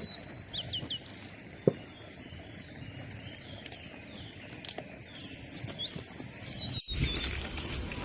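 Small birds chirping in short calls over a steady outdoor background with a few sharp clicks. Near the end the sound cuts out briefly and resumes as louder rustling noise.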